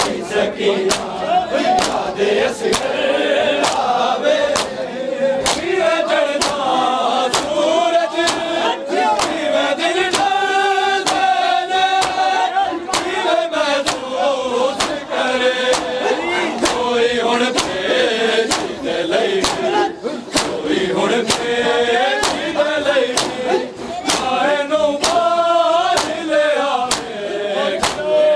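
Crowd of mourners doing matam: bare hands slapping bare chests in unison, sharp claps about one and a half a second, under men chanting a noha together.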